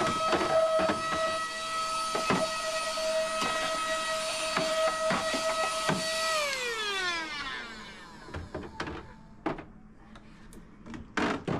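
A small electric motor running with a steady whine, with rattling and clicking over it; about six seconds in it is switched off and winds down, its pitch falling away. Scattered knocks and clicks follow.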